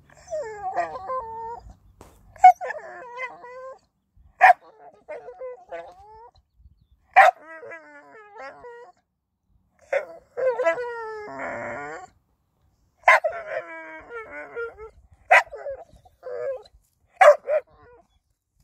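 A Staffordshire bull terrier 'talking': about eight bursts of drawn-out vocalising that slides up and down in pitch, several of them opening with a sharp yip.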